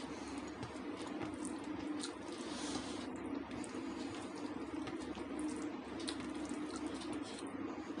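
Fingers mashing and mixing cooked rice with butter paneer gravy on a plate: soft wet squishing with many small sticky clicks, over a steady low hum.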